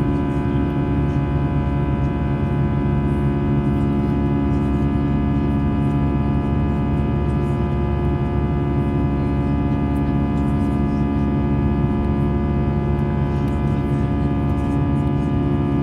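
Steady drone inside the passenger cabin of an Airbus A320: engine and airflow noise made of a low rumble with several steady humming tones, unchanging throughout.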